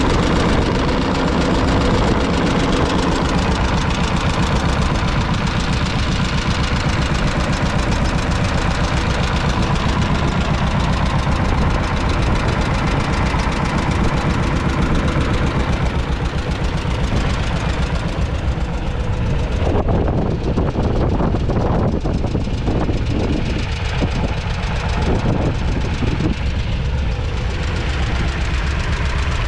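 John Deere Model L's 1.1-litre two-cylinder engine running steadily while the tractor pulls a plough, heard close up from the tractor itself, with fast, even firing pulses.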